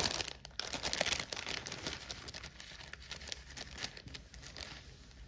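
Kit packaging rustling and crackling in the hands as it is handled, loudest at the start and dying down over the next few seconds.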